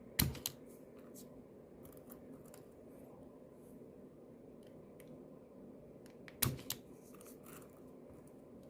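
LY700F wire stripper clamping and cutting the insulation on jumper-cable wires: a sharp double click near the start and another double click about six seconds later, each a squeeze of the handles stripping a wire end, with faint small ticks of wire handling between.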